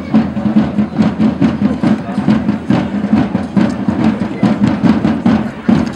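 Marching band music led by drums beating a quick, steady rhythm over a sustained low tone.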